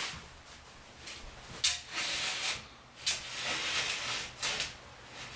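Pinball machine's playfield glass being slid and handled in its cabinet with gloved hands: short rubbing and sliding scrapes, with a sharp click about a second and a half in.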